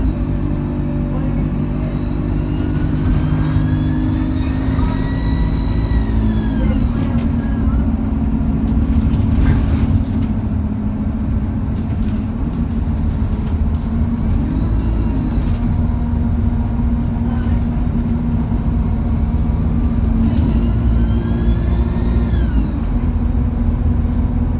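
Alexander Dennis Enviro200 bus heard from on board, its diesel engine pulling under load. A high turbo whine rises in pitch three times as the bus accelerates, and drops away quickly at the end of each climb.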